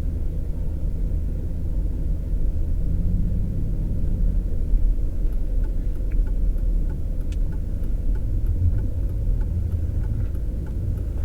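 Steady low rumble of a 4wd vehicle's engine and tyres, heard from inside the cabin while driving over snow-covered roads. From about five seconds in, a faint regular tick sounds about every two-thirds of a second.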